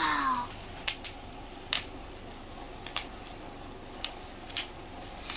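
Bubble wrap popped by hand, one bubble at a time: about five sharp, separate pops spread over several seconds. A short falling vocal sound comes at the very start.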